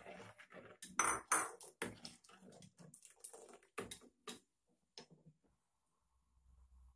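A metal ladle stirring a metal pot of sago pearls in coconut milk, clinking and scraping against the pot's sides and bottom in quick irregular strokes, loudest about a second in and stopping about five seconds in.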